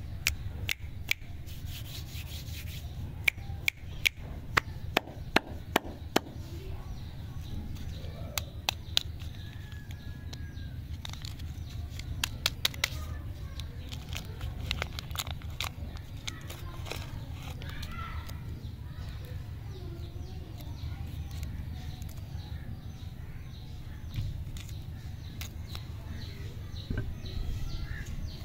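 Lollipop wrappers being unwrapped by hand, crinkling and crackling in sharp bursts, busiest in the first few seconds and again about halfway through, over a steady low hum.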